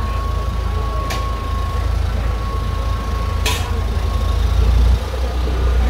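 Food truck's engine running with a steady low rumble and a thin steady whine that fades out about three-quarters of the way through. Two brief sharp noises cut across it, about a second in and again halfway through.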